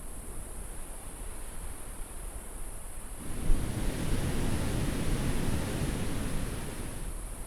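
Ocean surf: a wave breaks about three seconds in and washes up the shore, swelling and then slowly easing, over a steady high-pitched hum.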